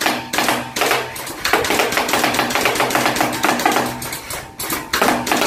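Jinming M4A1 battery-powered gel blaster firing full-auto bursts at a cardboard box: its motor and gearbox whirr, and rapid clacks come at an even pace. Two short bursts sound in the first second, a long burst runs from about a second and a half to four and a half seconds, and another starts near the end.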